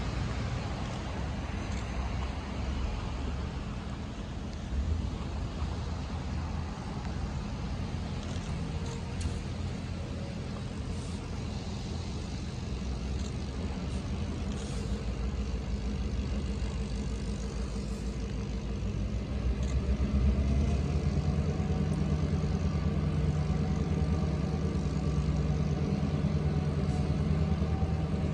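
EMD GP38 diesel-electric locomotive, its 16-cylinder two-stroke engine running in a steady low drone as the freight train approaches slowly. It grows louder and a little higher about two-thirds of the way through as the locomotive draws nearer.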